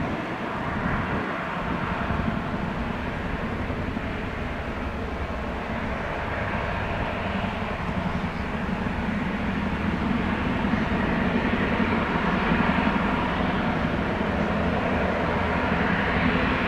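Turbine aircraft engines running steadily with a many-toned hum, slowly growing louder.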